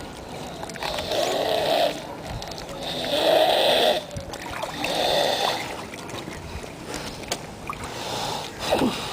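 Snoring: a run of regular snores, each about a second long, coming every one and a half to two seconds, the last one weaker.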